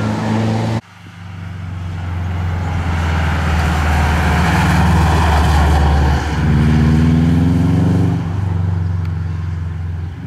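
A rally car's engine at full revs cuts off abruptly under a second in. Then a Subaru rally car's engine grows louder as it approaches and accelerates hard through a hairpin, climbing in pitch, with a brief break near the end as it changes gear.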